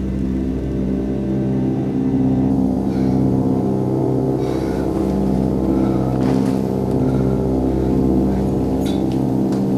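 Low, sustained droning horror-film score: a dense chord of held tones with gong-like ringing, parts of it swelling and fading, and a few faint clicks about halfway through and near the end.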